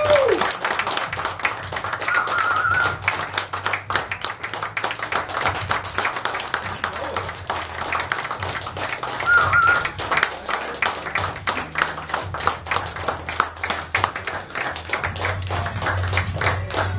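A crowd clapping steadily, many hands at once, with a couple of brief whoops about two and nine seconds in.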